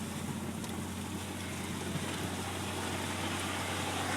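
A vehicle's engine running steadily under a broad rushing, scraping noise of cut trees dragged along the road behind it, slowly growing louder.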